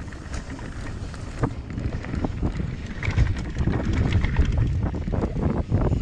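Mountain bike descending a dirt trail at speed: wind buffeting the camera microphone over the tyres rolling on dirt and loose gravel, with many small clicks and knocks of the bike rattling. It grows louder about two seconds in as speed builds.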